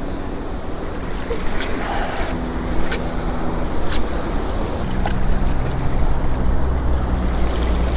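Surf washing against shoreline rocks, with wind on the microphone and a low steady hum that comes and goes.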